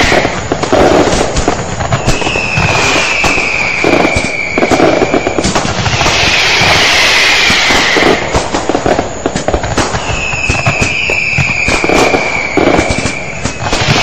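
Fireworks going off: a dense run of bangs and crackling, with a falling whistle rising above it twice, about two seconds in and again about ten seconds in.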